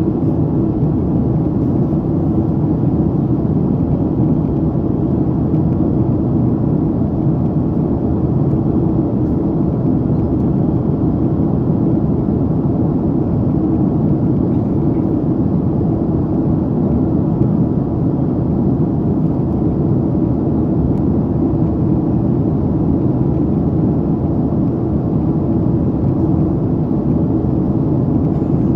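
Steady low rumble inside the cabin of a Boeing 767-300ER in flight: engine and airflow noise heard from a window seat beside the wing.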